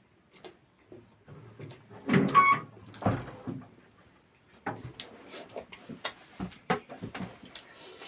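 Close-up eating sounds: chewing, lip smacks and small wet mouth clicks in an irregular run, with a louder burst of them about two to three seconds in.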